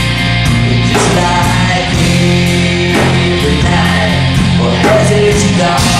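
Rock band playing live, with held bass notes under the band and a drum hit about once a second.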